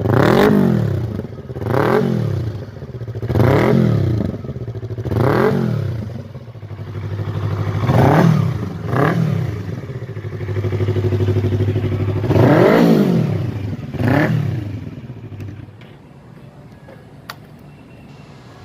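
Yamaha MT-25's 249 cc parallel-twin engine being revved in short throttle blips, about eight times, each rising in pitch and falling back to idle. About three-quarters of the way through, the engine note fades out.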